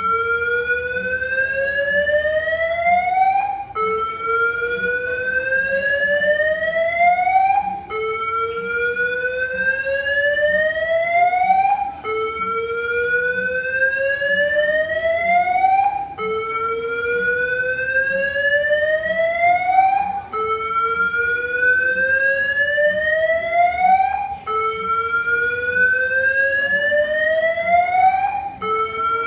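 Airport terminal alarm sounding a slow rising whoop. Each tone climbs steadily for about four seconds, then drops back and starts over, again and again.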